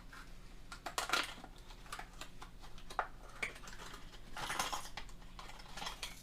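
A packaged crankbait lure being handled: a run of small clicks and taps, with longer crinkling rustles about a second in and again past four seconds.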